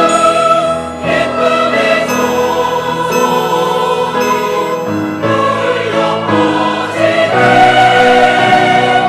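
Church choir singing an anthem in held chords, the harmony changing every few seconds.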